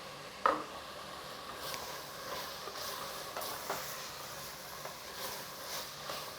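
Cut carrots going into a pan of frying masala: a sharp knock about half a second in, then faint sizzling with light clicks and scrapes of a spoon in the pan.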